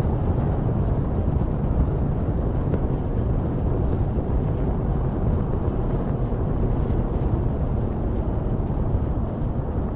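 Space Shuttle rocket exhaust during ascent, from its solid rocket boosters and main engines: a steady low rumble with little high end.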